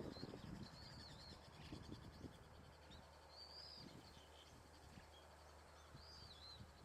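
Faint, high-pitched bird calls: a few short arched chirps a couple of seconds apart, over a low steady background hum.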